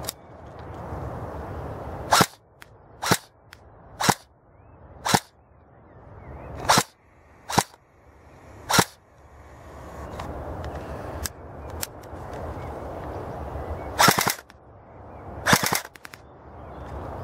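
Airsoft AK-pattern rifle firing semi-auto: seven sharp single shots about a second apart, then two short full-auto bursts.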